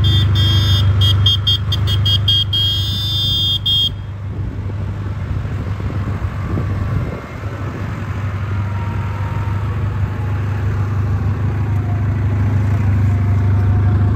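Case IH farm tractor's diesel engine running steadily with a deep drone as the loader tractor drives across the yard. For the first four seconds a high tone keeps starting and stopping over the engine.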